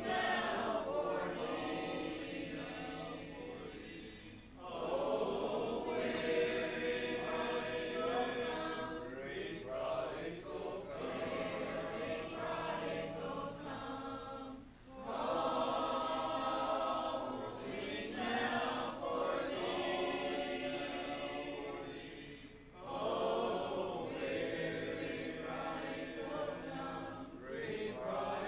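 Church congregation singing a hymn together unaccompanied, a cappella, in long phrases with short breaks between lines.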